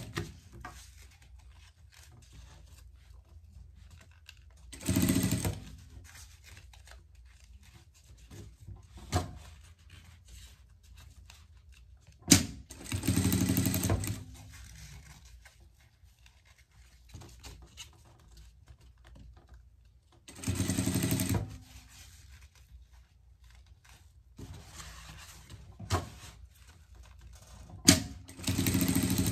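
Industrial sewing machine stitching raincoat fabric in short runs of about a second each, four times, with pauses between. A few sharp clicks fall in the pauses.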